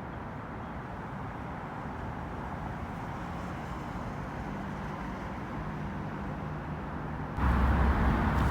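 Steady city traffic rumble with no clear single vehicle; it gets abruptly louder and heavier near the end.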